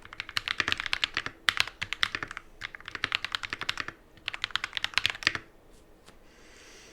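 Typing test on a Feker FK68T mechanical keyboard with lubed Akko Rose Red linear switches: quick runs of clacking keystrokes in bursts with short pauses between them. The typing stops about five and a half seconds in.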